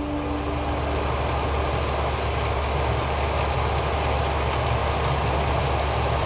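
Truck driving on the road: a steady engine drone with road noise.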